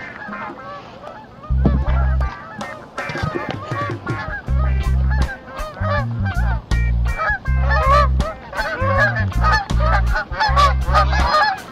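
A flock of geese honking, many short overlapping calls.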